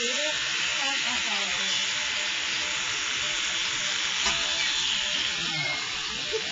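Electric animal clippers running steadily as they shave fur around a dog's wounds, a steady hiss with a single click about four seconds in.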